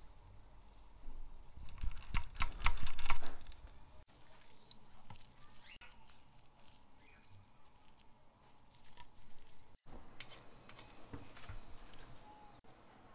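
Light clicking and tapping of small lighter parts being handled, with a quick flurry of clicks about two to three seconds in.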